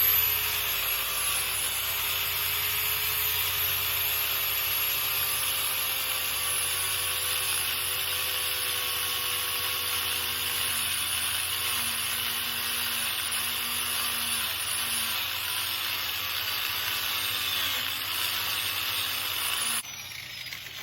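Angle grinder running steadily while grinding paint off a painted steel door hinge, a continuous high whine over a dense grinding hiss; it cuts off near the end.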